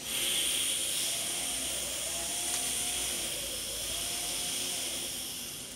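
A steady rushing hiss of blowing air that starts abruptly and fades near the end with a faint falling whine.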